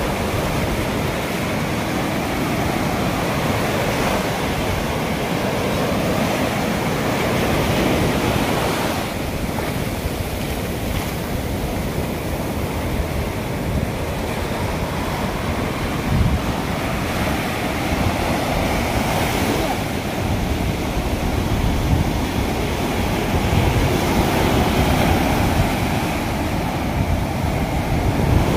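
Sea surf breaking and washing up the beach in a steady, swelling rush. Wind buffets the microphone.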